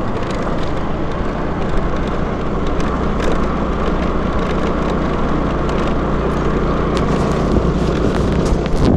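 Honda scooter engine running steadily while riding at around 20 km/h, with road noise. Wind buffets the microphone in short gusts, more often near the end.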